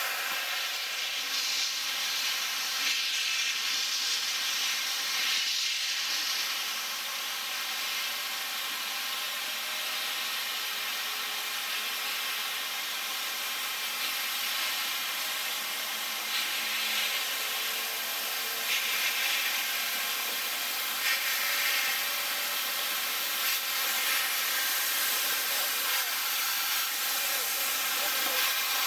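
Steam locomotives letting off steam: a steady hiss, swelling into louder gusts a few times.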